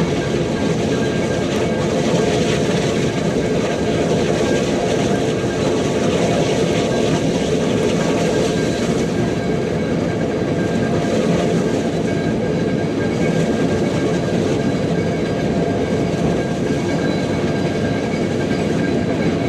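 Mount Washington Cog Railway train, a coal-fired steam locomotive pushing its passenger coach up the cog rack, running steadily, heard from aboard as an even, dense rumble and rattle.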